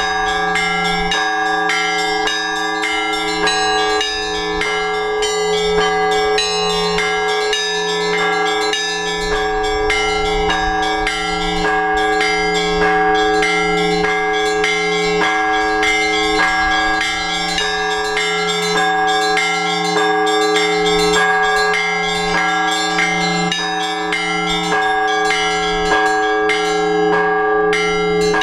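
Orthodox church bells ringing a trezvon, a peal of several bells at once: small bells struck in a fast, steady rhythm over the held tones of the larger bells. It is the ringing that calls the faithful to the all-night vigil.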